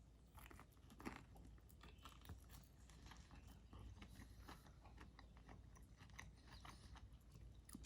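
Faint, close-up chewing and biting: a chicken wing in barbecue sauce being eaten, with irregular small crunches and mouth clicks.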